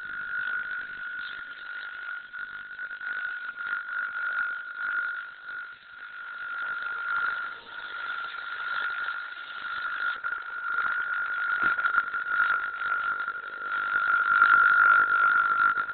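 Ultrasonic cell disruptor (sonicator) probe running at 25 watts with its tip in a burning candle of vegetable oil and wax rather than in water. It gives a steady, rasping whine with a crackle around it, which grows louder over the last few seconds.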